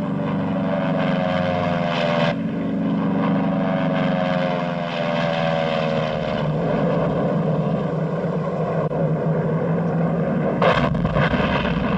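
Propeller aircraft engines droning, their pitch slowly falling as they pass. A sudden blast comes near the end.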